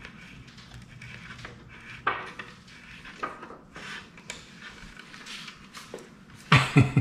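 Scattered clinks and knocks of garment-rack parts being handled and fitted together during assembly, with a louder run of knocks near the end.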